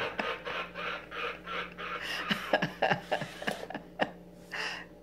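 A woman laughing heartily in repeated breathy bursts that trail off near the end.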